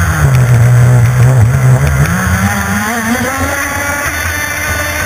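CMB91RS nitro-methanol marine engine of a radio-controlled offshore race boat, heard from onboard. It runs at low revs for about two seconds, then climbs in pitch as it picks up speed, with the hiss of water spray underneath.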